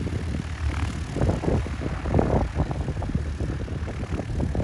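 Small propeller airplane's engine running with a steady low drone.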